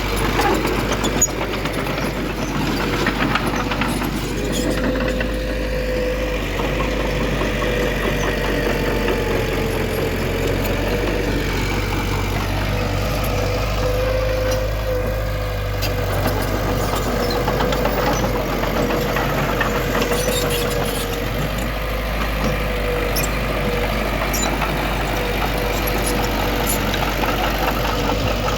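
Diesel engine of heavy earthmoving machinery running steadily, with a steady tone riding on it that drifts a little in pitch, and a few faint clanks.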